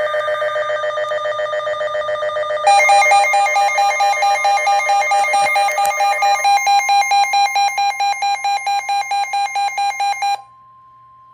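Electronic emergency-alert tone heralding a broadcast weather warning: a loud, buzzy, rapidly pulsing tone that steps up in pitch and gets louder about a quarter of the way in, then cuts off suddenly, leaving a faint steady beep.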